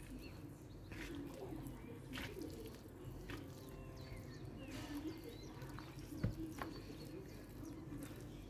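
Faint wet squishing and slapping of hands rubbing spice marinade into a raw whole chicken in a plastic bowl, with birds calling in the background and one sharper knock about six seconds in.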